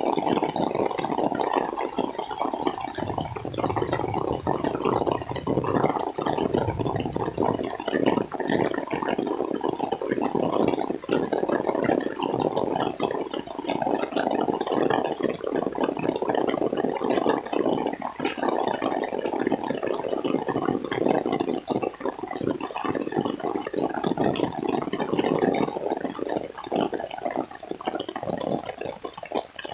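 Heavy rain pouring steadily, with dense close drop hits. A deeper rumble swells a few seconds in and fades out again.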